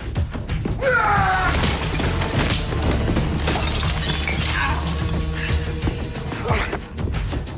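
Dramatic film score with a steady low drone. About a second in, a short sound glides down in pitch, and around three and a half seconds in there is a burst of breaking glass.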